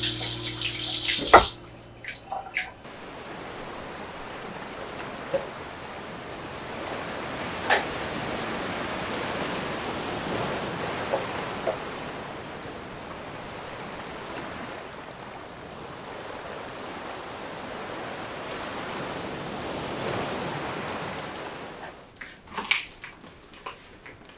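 A tap running into a sink, shut off about a second and a half in. Then the steady wash of sea surf, swelling slowly and easing, with a few light knocks and rustles near the end.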